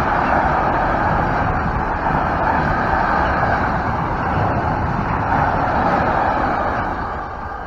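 Container freight wagons rolling past at speed: a steady, loud noise of wheels running on the rails, which starts to fade near the end as the tail of the train goes by.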